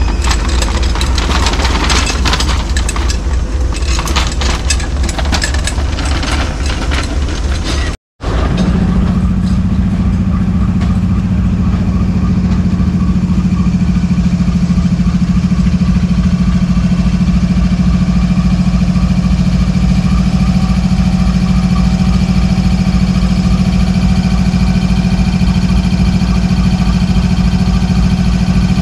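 Diesel-electric locomotive idling steadily, its engine holding an even low hum with a constant pitch. Before a short break about eight seconds in there is irregular clattering.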